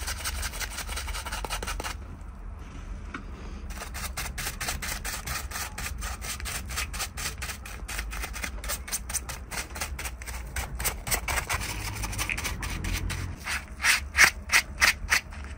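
Bristle brush scrubbing a foam-covered RC car chassis in quick back-and-forth strokes, several a second. The strokes grow louder near the end.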